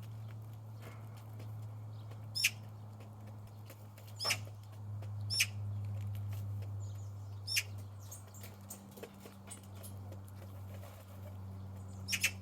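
Birds at a feeding spot: about five short, sharp high chirps, spaced a second or more apart, over a steady low hum.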